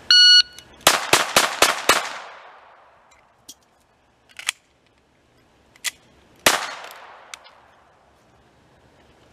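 A shot timer's electronic beep, then five rapid shots from a Glock 44 .22 LR pistol within about a second. A few faint clicks of a magazine change follow, then a single sixth shot about six and a half seconds in.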